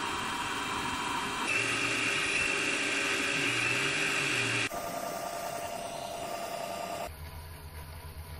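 Mini lathe running, turning a stainless steel rod, with a steady machine whine. It comes in several short clips, so the pitch and level change abruptly about one and a half, four and a half and seven seconds in. The last clip is quieter, with a low hum.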